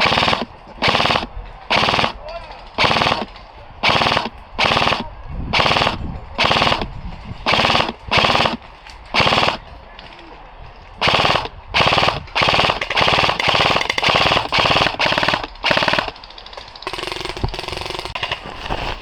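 Airsoft electric gun (AEG) firing short full-auto bursts, each a rapid rattle of shots, about one burst a second. The bursts pause briefly about ten seconds in and stop about sixteen seconds in.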